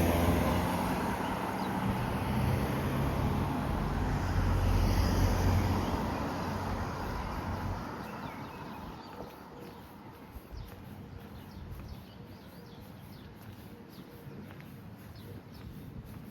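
A passing vehicle's engine rumble, loud for the first several seconds and then fading away. Faint bird chirps follow.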